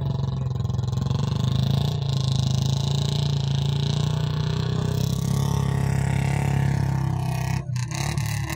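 Engine running steadily at constant speed, with a brief dip in level about three-quarters of the way through.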